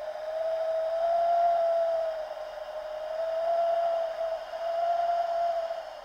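A wavering whistling tone, a howling winter-wind sound effect, swelling and easing about three times.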